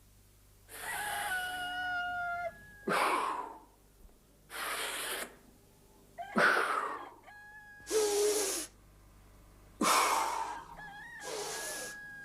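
A series of about seven short rushing noises, each under a second long, coming every second or two. Hens cluck and call faintly between them.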